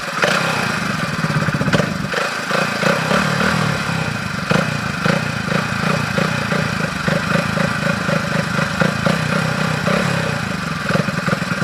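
Hero Splendor's single-cylinder four-stroke engine running, its exhaust fitted with a plastic Coke bottle over the silencer outlet to change the note: a steady, rapid putter with small swells in level.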